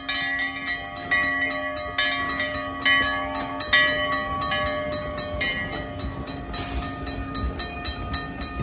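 Old-time 4-4-0 steam locomotive rolling slowly past, its bell ringing about once a second, over a faster, steady ringing of a grade-crossing signal. The bell fades after about five seconds, and a low rumble rises as the engine and tender go by.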